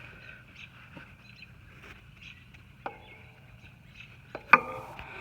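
Light ticks and small clicks from the lawn tractor's spring-loaded tension lever being handled, with a single sharp clack about four and a half seconds in.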